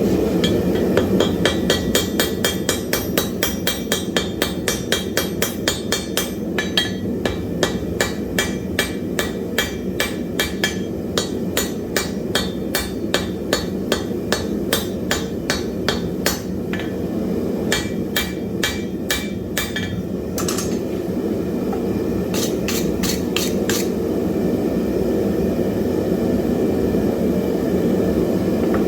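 Hand hammer striking hot wrought iron on an anvil in a fast, even rhythm of about three blows a second, each with a short metallic ring. The blows break off about two-thirds of the way in, resume for a brief flurry, then stop. Under them runs the steady roar of the forge.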